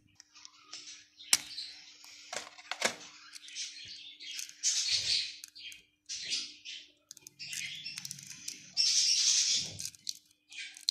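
Quail eggs being cracked open by hand into a plastic bowl: a few sharp shell cracks in the first three seconds, then scratchy rustles as the thin speckled shells are pinched and pulled apart.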